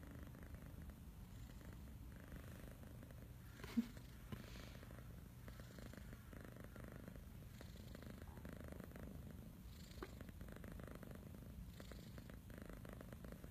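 A kitten purring softly and steadily, the purr swelling and easing every second or two. A single sharp click comes about four seconds in.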